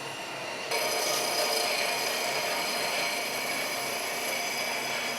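Shop power tool running steadily with a steady whine, jumping louder suddenly just under a second in.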